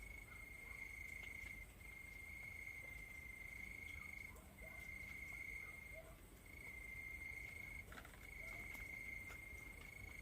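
Cricket trilling continuously on one high steady pitch, breaking off briefly a few times, with faint ticks and small chirps beneath.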